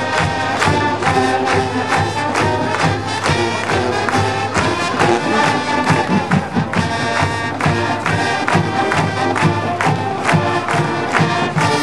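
High school marching band playing: brass and percussion, with a steady drum beat under the horns.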